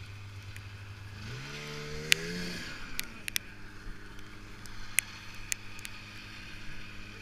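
Snowmobile engine running at a steady low pitch, revving up about a second in, then holding a steady higher drone. A few sharp clicks come through over the engine, the loudest just after two seconds in.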